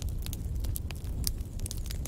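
Wood fire in a fireplace crackling: irregular sharp snaps and pops, several a second, over a low steady rumble of burning.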